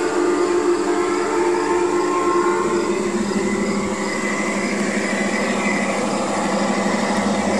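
G-scale model SD-45 diesel locomotives pulling a train along garden railway track, a steady running hum of motors and wheels on rail. The tones in the hum shift about three seconds in.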